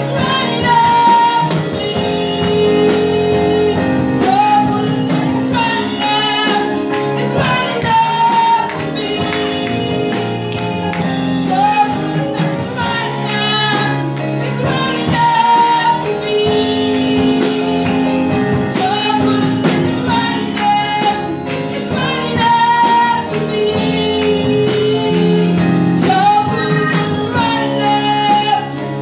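A woman singing a gospel song into a hand-held microphone, with live band accompaniment and steady percussion behind her.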